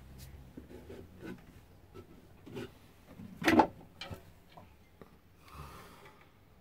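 Scattered knocks, rubs and creaks of someone moving about inside a small boat cabin, with one sharper, louder knock about three and a half seconds in.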